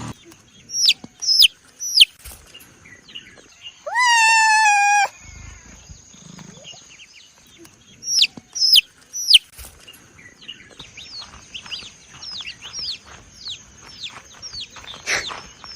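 Young poultry chicks peeping: short, high calls that drop in pitch, coming in clusters, with one longer drawn-out call about four seconds in.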